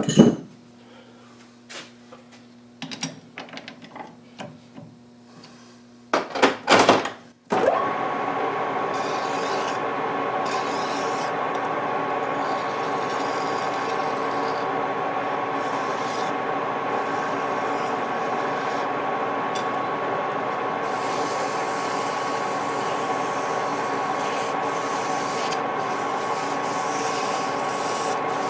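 A few handling clicks and knocks, then a metal lathe starts about seven seconds in and runs steadily with a constant whine. A hand file and then abrasive cloth rub against the spinning brass-coloured piston, a light rasping over the machine.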